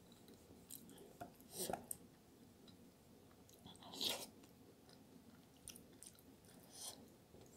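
Close-miked chewing and wet mouth clicks of someone eating soft, cheesy eggplant parmigiana, loudest about a second and a half in and again about four seconds in as a spoonful goes into the mouth.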